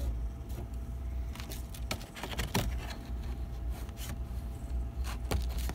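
Steady hum of a powered Monoprice Select Mini 3D printer, its print-head cooling fan running, with scattered light clicks and scrapes from hands working at the print head and bed.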